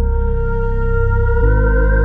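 Background music: sustained held chords over a low bass, moving to a new chord about one and a half seconds in.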